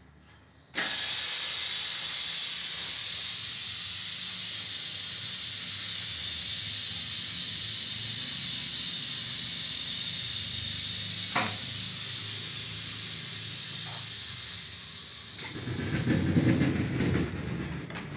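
Compressed air hissing steadily from a pneumatic heat press. It starts abruptly about a second in, fades after about fourteen seconds, and a low rumble comes in near the end.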